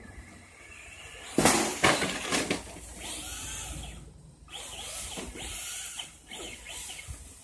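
Traxxas Slash Ford Raptor RC truck driving on dirt. About a second and a half in there is a loud, sudden burst of tyre noise and knocks, then its electric motor whines up and down in pitch as the throttle is worked.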